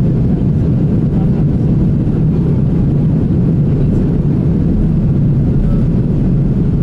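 Steady low rumble of a jet airliner's engines and wheels, heard inside the passenger cabin as the plane rolls along the ground.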